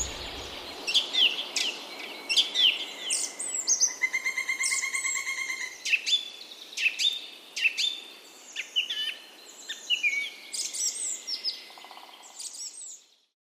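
Songbirds chirping and singing in many short, high calls and whistles, with a fast trill about four seconds in. The sound cuts off abruptly just before the end.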